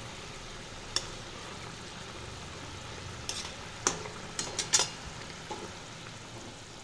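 Thin magur fish curry bubbling with a steady sizzle in a kadai, while a metal spatula stirs it. The spatula clicks and scrapes against the pan once about a second in and several times between three and five seconds in.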